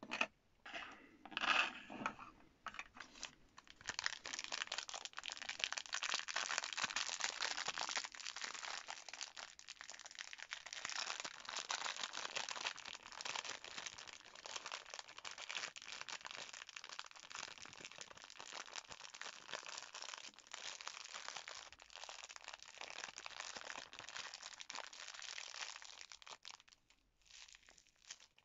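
A block of green foam-bead flossy clay handled in its clear plastic wrap: a dense, continuous crinkling and crackling of the film and the tiny foam beads. It starts about four seconds in, after a few separate handling knocks, and thins out near the end.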